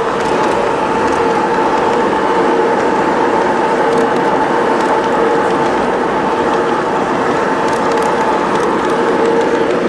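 A 1:22.5-scale garden-railway model of a Rhaetian Railway Ge 4/4 III electric locomotive running past close by. Its motor and gearing give a steady two-note whine over the rumble of the wheels on the track and the background noise of a busy hall.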